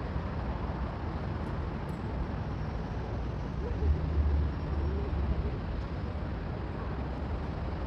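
Outdoor city background noise: a steady low rumble with a hiss over it, swelling briefly about four seconds in.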